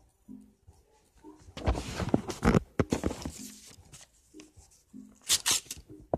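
Paper crinkling and rustling as it is handled and folded, a two-second burst of crackles starting about a second and a half in and a shorter one near the end.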